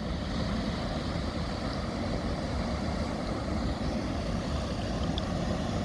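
Steady low rumble of a river container cargo ship's engine as the ship passes close by.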